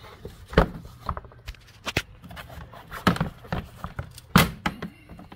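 Plastic engine cover being pulled up off its mounting pegs: a handful of sharp plastic clacks and knocks, four of them loud and spaced about a second apart.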